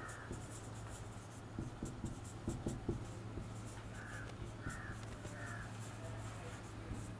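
Marker writing on a whiteboard: faint taps and scratches of the tip on the board, with three short squeaks about two-thirds of the way through, over a low steady hum.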